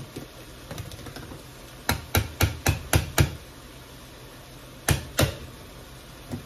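Sharp knocks and taps of kitchen utensils or containers at the stove: a quick run of about six, roughly four a second, then two more and a last one near the end.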